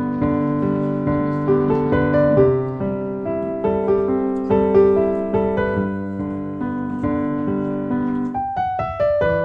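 Background piano music: gentle notes struck one after another and left to ring, with a quick falling run of notes near the end.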